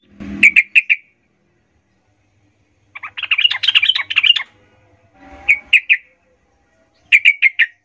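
Yellow-vented bulbul singing in the excited, full-voiced way keepers call 'gacor emosi': short bursts of three or four sharp, quick notes, and about three seconds in a longer run of rapid chattering notes.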